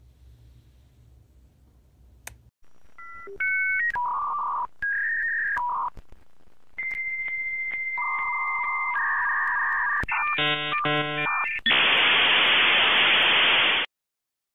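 Dial-up modem connecting: a run of beeping tones, a long steady high tone, warbling two-tone chatter, rapid chirps, then a loud hiss that cuts off suddenly near the end.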